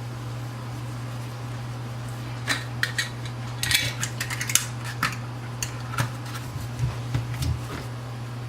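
Clicks, clinks and scrapes of lids being put on and screwed down tight on jars, over a steady low hum.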